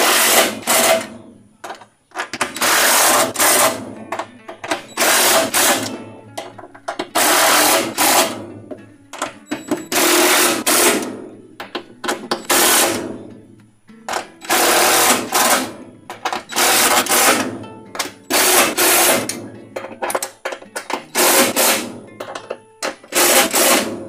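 Cordless drill-driver driving screws into a metal transmission mounting plate in short bursts of about a second each, roughly every two seconds, about ten times: the transmission bolts being tightened down one by one.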